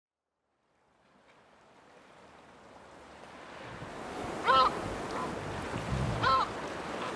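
Wind and water ambience fading in from silence, with a bird giving two short calls about four and six seconds in.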